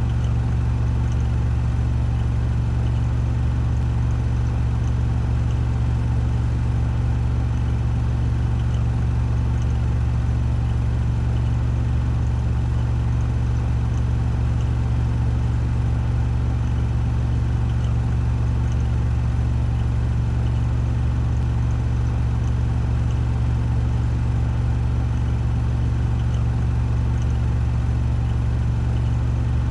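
Washing machine on its spin cycle, drum spinning at 1400 rpm: a steady, deep hum that holds without change.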